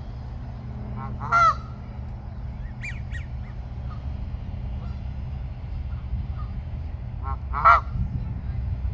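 Canada geese honking: a loud honk about a second and a half in, a few fainter short calls around three seconds, and another loud honk near the end. A steady low rumble runs underneath.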